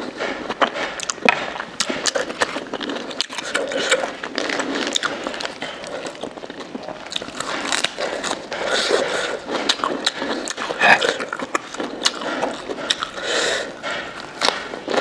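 Close-up chewing and crunching of fresh lettuce leaves, with wet mouth sounds and many quick crackling clicks throughout.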